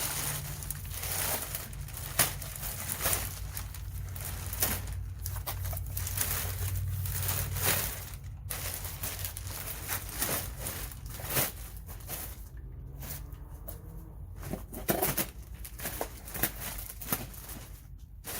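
Packaging wrap being pulled off and handled, crinkling and tearing with many small rustles and knocks. It is busy for the first twelve seconds or so, then thins out to scattered handling sounds.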